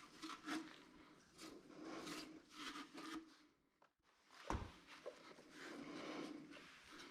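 Faint rubbing and handling noises of parts being worked on, with one sharp knock about four and a half seconds in.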